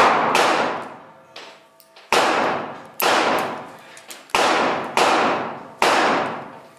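Korth Sky Marshal revolver firing 9 mm Luger rounds in slow aimed fire, five loud shots roughly a second apart, each ringing out in the long echo of an enclosed stone-walled range. A shot fired just before still rings at the start, and a fainter sharp report comes between it and the next.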